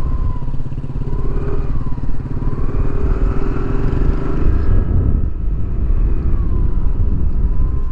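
Suzuki Burgman Street 125 scooter's single-cylinder engine running as it rides at about 30–37 km/h, heard from the rider's seat. A steady low rumble dominates, with a faint whine that rises and falls several times.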